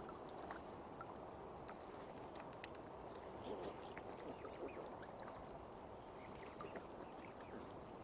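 Gentle lake water lapping and gurgling, with many small scattered splashes and drips.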